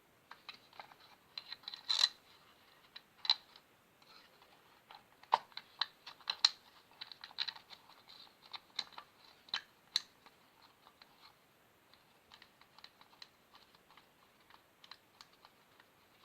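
Screwdriver turning a screw into a wall socket's faceplate and back box: irregular small clicks and scrapes, with a handful of louder sharp clicks.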